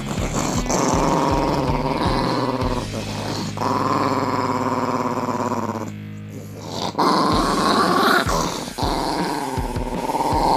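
Chihuahua growling and grumbling in long, drawn-out stretches, with a short break about six seconds in. It is a hungry dog demanding its dinner.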